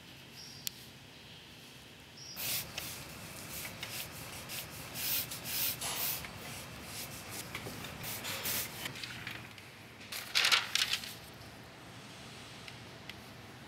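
Pencil sketching on paper: a run of quick, irregular scratchy strokes starting about two seconds in, loudest around ten seconds in.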